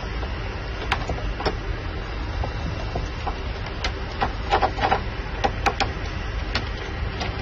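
Irregular small clicks and scrapes of a screwdriver working the terminal screws of a DIN-rail circuit breaker as wires are pushed in and tightened, busiest around the middle, over a steady low hum.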